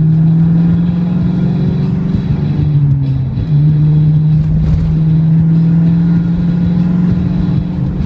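Car cabin noise while driving: a steady low drone of engine and tyres on the road.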